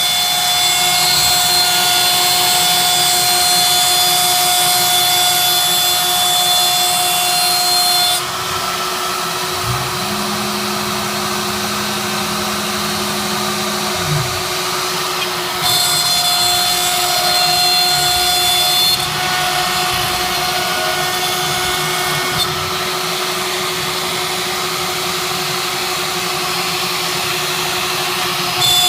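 CNC machine running: a steady high whine over a lower hum, with the higher tones dropping out and coming back several times, and a low motor tone that rises, holds for about four seconds, then falls away about a third of the way in.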